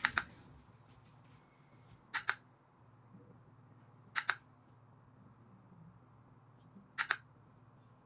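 Buttons on a wireless LED-strip controller remote pressed four times, about two seconds apart, each press a sharp double click. The presses step through the controller's built-in lighting modes.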